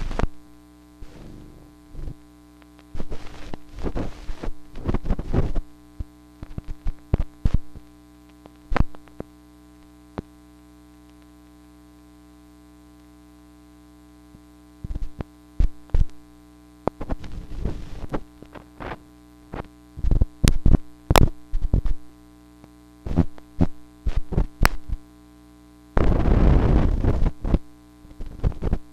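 Film soundtrack of a cameraless animation: a steady buzzing hum with irregular clicks, pops and short crackles over it, as from marks scratched on the film. The crackles come in clusters, die away to the bare hum for a few seconds near the middle, and turn into a dense rough noise near the end.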